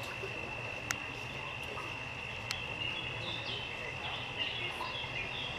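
Steady, high-pitched insect trill, with short bird chirps scattered over it and two sharp clicks about a second and a half apart.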